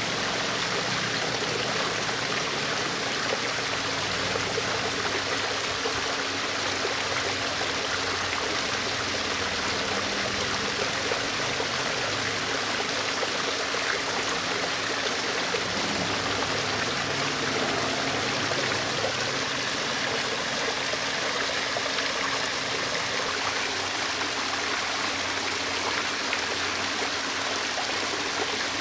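Home waterfall water feature, water running and splashing steadily.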